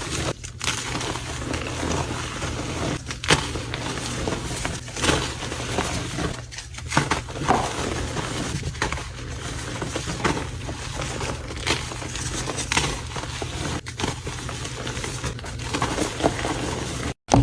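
Continuous gritty crunching and crackling of dry, granular material being crushed and worked, broken by a few short pauses and cutting out abruptly near the end.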